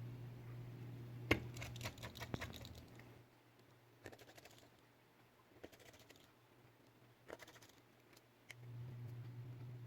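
Light clicks and taps of small repair tools on a smartphone's screws and internal parts: a sharp click about a second in, a quick run of ticks after it, then single ticks every second or two. A low steady hum drops out about three seconds in and comes back near the end.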